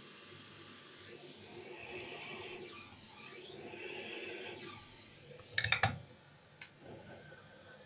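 Hands handling plastic laptop parts on the bench: a few seconds of soft rubbing and scraping, then a quick cluster of loud clicks about halfway through and one more click a second later.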